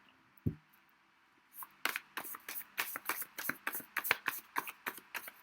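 A deck of divination cards being shuffled by hand: a single low thump about half a second in, then from about a second and a half in a quick run of sharp card slaps, about five a second.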